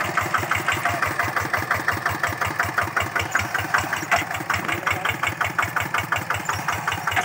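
Single-cylinder diesel engine of a Quick two-wheel hand tractor running steadily with an even, rapid chugging beat while the machine works through paddy mud.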